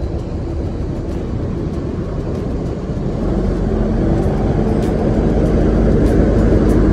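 Diesel engine of a long-distance coach bus running as the bus draws up close and moves past. The rumble grows louder from about halfway through.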